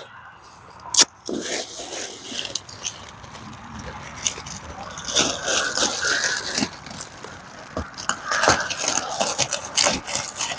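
Plastic sheeting of an emergency shelter tent crinkling and scraping as it is handled and shifted, in irregular rustles, with a sharp click about a second in.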